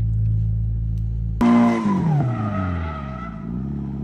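A steady low drone, then about a second and a half in, a sudden loud start of a Nissan 180SX drifting. The SR20DET engine's pitch falls away, then dips and rises again near the end, over the noise of tyres skidding.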